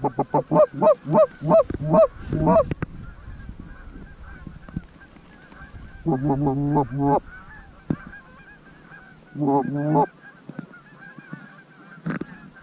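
Goose honking: a quick run of about eight loud, rising honks in the first few seconds, then two short bursts of fast chattering honks around six and nine seconds in, over a faint steady background of more honking.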